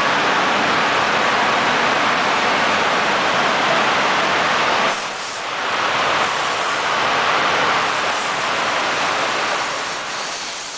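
Automatic gantry car wash machine running, a loud steady rushing noise that dips briefly about five seconds in and then returns.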